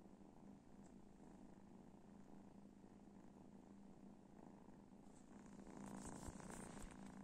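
Young black cat purring faintly and steadily. Near the end there is a short spell of rustling and handling clicks.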